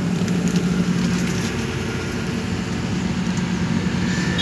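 Hyundai Robex 215 excavator's diesel engine running steadily, heard from inside the cab, with a few light clicks in the first second or so.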